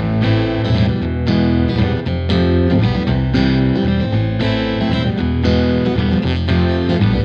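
Background music: a guitar-driven track with distorted electric guitar.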